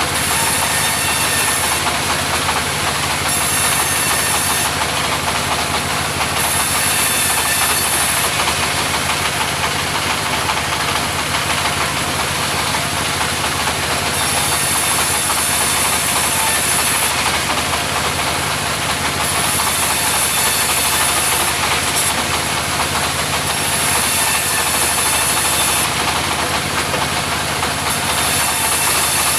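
Engine-driven mobile sawmill running steadily, its saw cutting timber, with a high hissing whine that swells and fades every few seconds.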